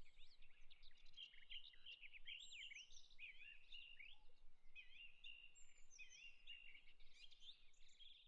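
Faint birdsong, a quick unbroken run of high chirps and whistles.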